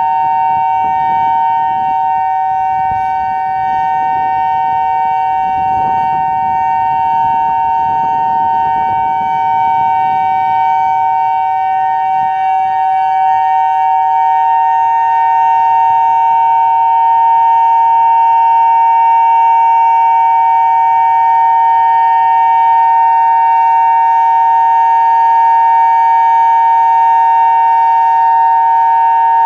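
Federal Signal Modulator 5020 electronic outdoor warning siren sounding a steady two-note chord, its pitch held level, growing a little louder about halfway through. A low rumble is heard under it for the first ten seconds or so.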